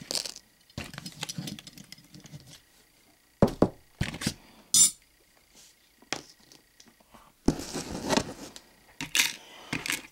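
Hands handling small fishing tackle on a wooden tabletop: scrapes and rustling broken by several sharp clicks and knocks.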